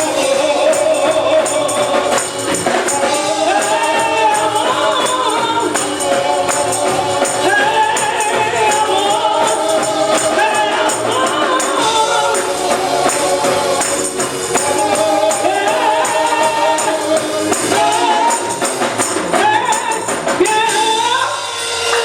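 A group of voices singing a gospel song, with a tambourine shaken along to the beat.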